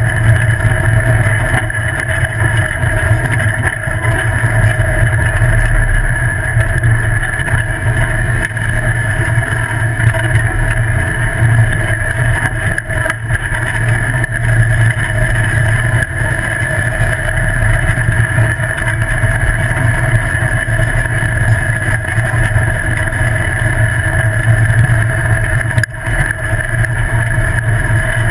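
Off-road buggy running at a steady speed on a dirt track: a constant low engine drone mixed with rushing wind and rolling-tyre noise, with no marked revving.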